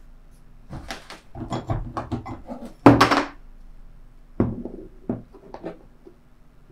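Fabric scissors handled on a wooden tabletop and snipping through cloth: a string of clicks and knocks with one louder thump about three seconds in, then a few separate snips.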